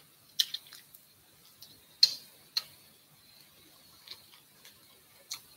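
Close-up eating noises of a person eating roasted quail with his fingers: a handful of sharp, irregular clicks and smacks from mouth and fingers, the loudest about two seconds in.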